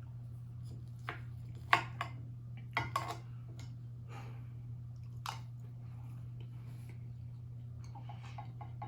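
Close-miked chewing with a few sharp, wet mouth smacks and clicks spread through it, over a steady low hum.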